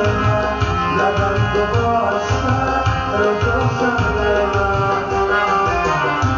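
Live instrumental music: a harmonium playing a held melody over a steady drum rhythm.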